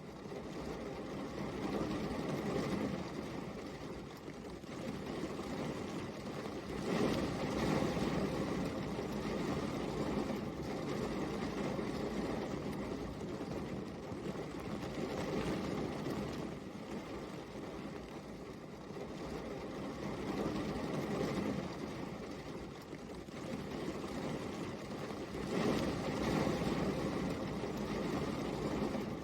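Steady rain falling, a continuous hiss and patter that swells louder and softer in slow waves.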